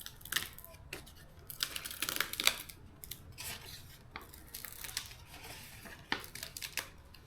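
Vinyl stripe graphic sheet being pulled apart and handled: irregular crackling, tearing and crinkling of the vinyl and its backing paper in short bursts, busiest around two seconds in.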